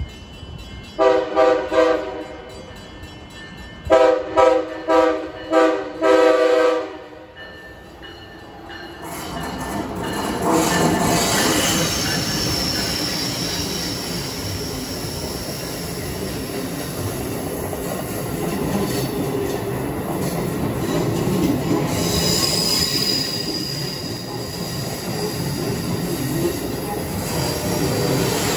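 Amtrak Acela Express high-speed trainset sounding its horn, a short sounding about a second in and then a series of blasts, before running through the station at speed. A steady rush of wheel and rail noise follows, with high whining wheel squeal at times on the curved track.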